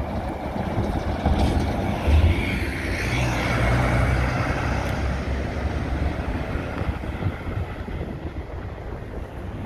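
A coach's diesel engine running as it drives past and away. It is loudest about two to four seconds in, with a higher whine rising and falling over it, then fades as the coach pulls away.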